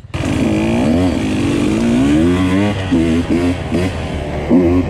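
Husqvarna TE 150 two-stroke dirt bike engine revving hard, its pitch rising and falling over and over with the throttle, with a few brief drops off the throttle.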